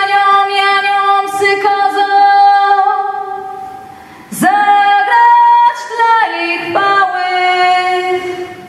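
A woman singing a slow Polish Christmas carol solo, holding long notes, with little or no accompaniment heard. A new phrase begins about four and a half seconds in.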